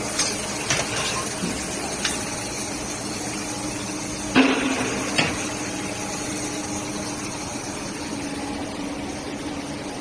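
A few sharp metal clanks as a hot steel forging is handled with tongs at a forging press, the loudest about four and a half seconds in, over a steady factory machine hum.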